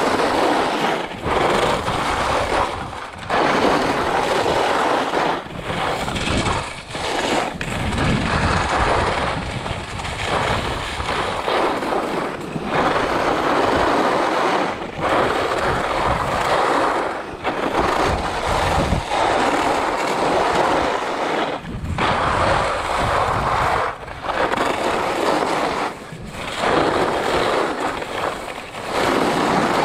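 Skis scraping and carving over packed snow: a continuous rushing scrape that drops away briefly every two seconds or so as the skier links turns.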